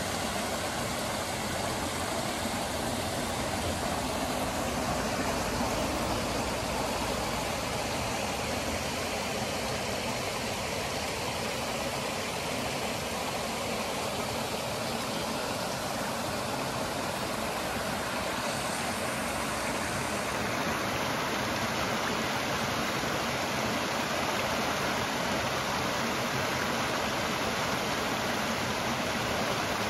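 Creek water rushing over rocks and small rapids: a steady, even rush of running water.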